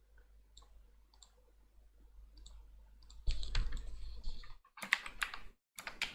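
A few faint clicks, then a quick run of computer keyboard keystrokes in the last couple of seconds as a short word is typed.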